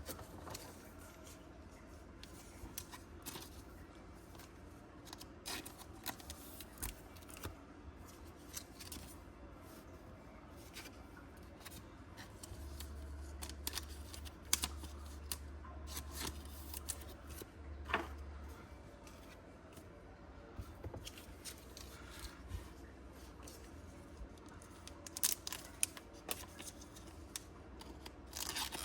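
Faint handling noises of trading cards being slid into plastic card sleeves: scattered soft clicks and rustles, with a few sharper ones near the end.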